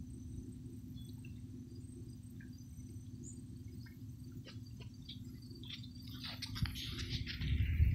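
Outdoor ambience: a low steady rumble with faint scattered chirps and ticks, and rustling, scraping handling noise from the phone in hand that grows louder over the last two seconds.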